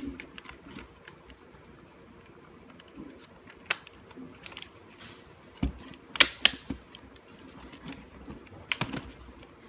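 Scattered clicks and knocks of plastic and metal instrument-cluster parts being handled and pressed together, with a quick double click about six seconds in the loudest.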